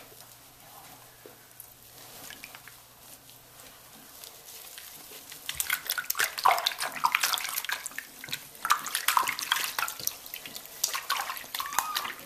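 Shallow water splashing and sloshing as hands wash a wet kitten, soft at first and then a busy run of loud splashes from about five seconds in.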